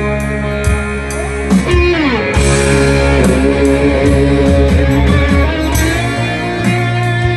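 Live rock band playing with no vocals: a lead electric guitar plays a melody with string bends over bass and drums.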